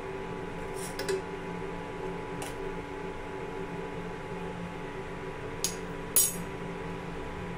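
Steel spoon clinking against a steel saucepan of simmering chai, a few light clinks, then two sharper clinks near the end as the spoon is set down on the countertop, the second the loudest. A steady electrical hum from the induction cooktop runs underneath.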